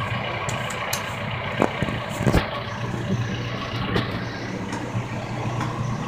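Backhoe's diesel engine running steadily, a constant low hum, with a few short sharp knocks over it.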